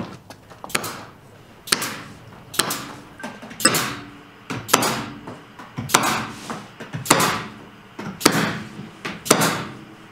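Pneumatic stapler, run off an air compressor, firing staples into quarter-inch plywood underlayment at a steady pace of about one shot a second. Each shot is a sharp bang that trails off briefly.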